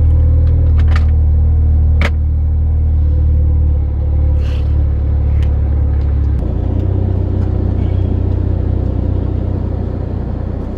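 A car being driven, heard from inside its boot: a loud, steady low rumble of engine and road, with a few sharp knocks and rattles. The rumble shifts in tone about six seconds in.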